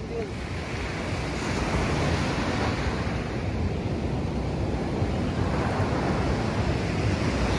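Sea surf washing onto the shore, with wind buffeting the microphone.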